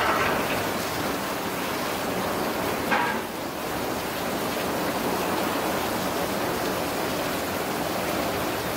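Heavy rain pouring down in a severe thunderstorm, a steady dense hiss. A short, sharper sound stands out about three seconds in.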